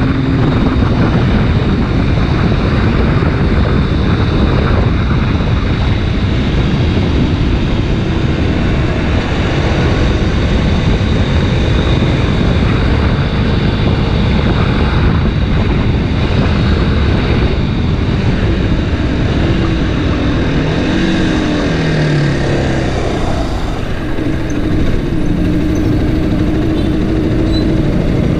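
Kawasaki Ninja 250 RR Mono single-cylinder engine running while riding, under heavy wind rush on the microphone. The engine note shifts up and down a few times in the second half.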